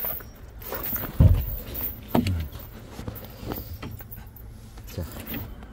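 Handling noise of food being set out: bumps, clicks and rustling, with one heavy low thump about a second in.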